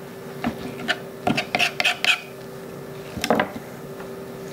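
Boning knife scraping and clicking against a plastic cutting board in short strokes as leftover fat is trimmed off a chicken breast, with a louder knock a little after three seconds.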